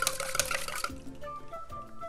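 Bar spoon stirring in a steel shaker tin, with rapid metallic clinks of the spoon against the tin that stop about a second in. Background music with a simple melody carries on.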